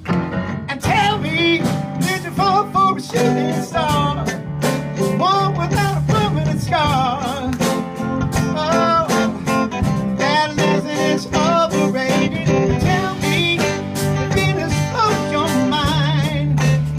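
Small live rock band playing a pop-rock song: a male lead singer over keyboard, electric guitar and a drum kit.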